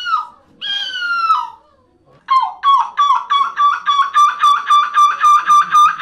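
A person screeching into a microphone in imitation of a gull: one long wailing call that falls in pitch, then after a short pause a fast run of repeated yelping calls, about four a second, at a steady pitch.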